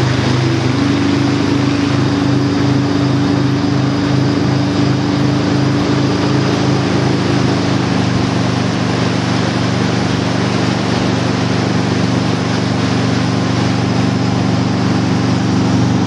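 Tow boat's engine running steadily at speed under a broad rush of water and wind. Its low hum throbs at about two beats a second for the first half, then evens out.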